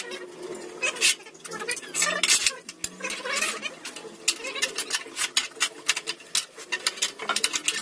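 Irregular metallic clicks and clinks of steel being worked by hand in a lever-operated scroll-bending jig on a steel table.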